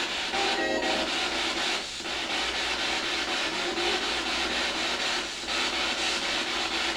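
Spirit box played through a small speaker, sweeping radio stations: steady, choppy static, with a brief fragment of broadcast sound about half a second in.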